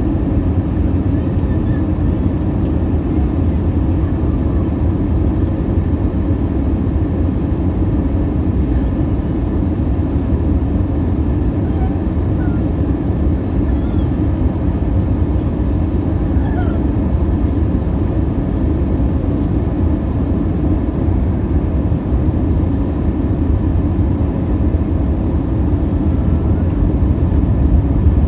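Steady low cabin roar of an Airbus A319 airliner, engine and airflow noise heard from a window seat over the wing as it descends on approach, growing a little louder near the end.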